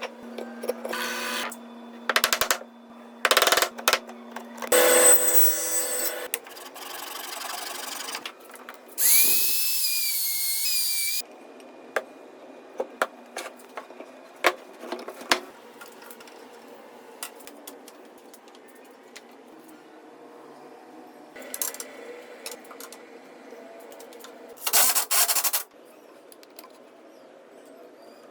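Woodworking power tools running in short bursts, with a pitched, wavering whine for about two seconds near the middle, and clicks and knocks of handling between the bursts.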